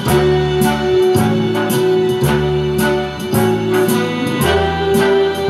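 Instrumental band music with a steady beat, played from a CD through a pair of Philips two-way hi-fi loudspeakers and heard in the room.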